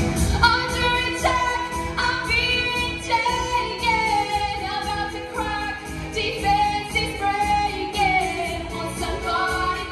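A young woman singing a pop show tune solo, with held notes that slide between pitches, over backing music with a steady beat.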